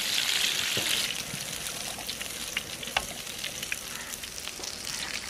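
Hot oil sizzling in a large wok as batter-coated chicken pieces deep-fry, a dense hiss with scattered crackles and pops. The hiss is loudest in the first second, then settles lower.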